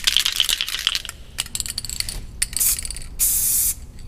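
Aerosol spray paint can being shaken, its mixing ball rattling rapidly for about a second, then a short puff of spray and, near the end, a longer half-second hiss of paint.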